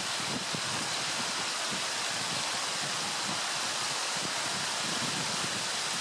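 Steady rush of running stream water, with low gusts of wind buffeting the microphone.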